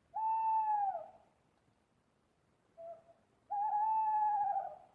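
Owl calling: two drawn-out hooting notes about a second each, the first sliding down at its end, with a short faint note between them.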